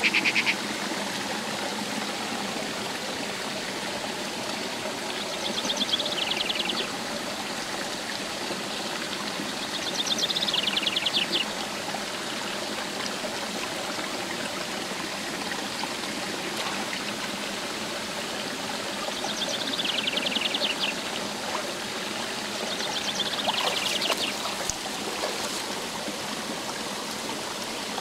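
Shallow rocky stream running steadily. A high, rapidly pulsed trill rises above the water about four times, each lasting about a second.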